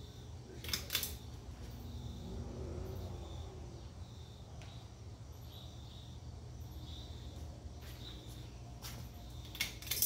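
1985 Hunter Original ceiling fan's oil-bath motor running with a steady low hum. Sharp clicks come about a second in and twice more near the end.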